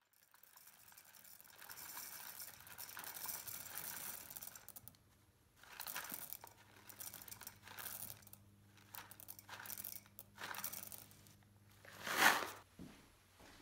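Green coffee beans poured from a paper bag into a glass jar: the bag crinkles as the beans run into the glass in one long pour, then in several short shakes, with the loudest rustle of the bag about twelve seconds in.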